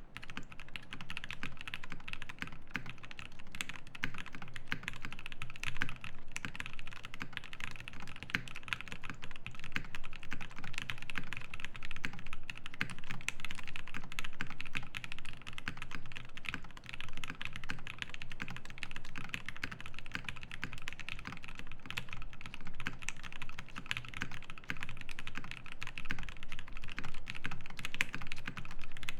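Fast, continuous typing on a Classy TKL mechanical keyboard with a brass plate, foam dampening, lubed Everglide Aqua King 62g linear switches and GMK Firefly keycaps: a dense, even stream of key strokes.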